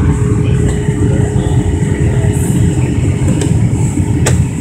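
Steady, loud jet-airliner cabin noise on approach: a low rumble of engines and airflow, with the landing gear lowered, carrying a constant hum. A single sharp click near the end.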